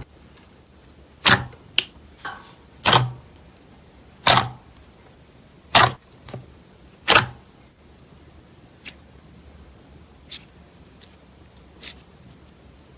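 Slime being pressed and worked, giving sharp pops as trapped air bursts, about one every one and a half seconds, then three fainter clicks in the second half.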